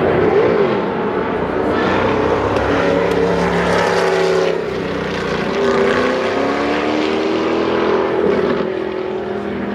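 Historic Can-Am race car engines running at racing speed, several cars at once, their pitch rising and falling as they pass and change gear.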